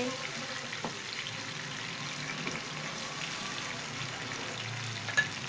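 Chopped onions and ginger garlic paste sizzling steadily in hot oil in a pan, stirred with a wooden spoon at first, with a single sharp click near the end.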